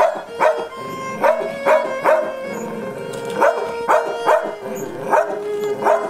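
Background music with held notes and a sharp pulse of about two strikes a second, pausing briefly near the middle.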